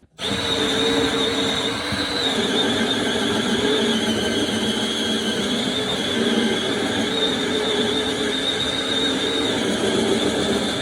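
A motor-driven machine starts abruptly and runs steadily with a high whine.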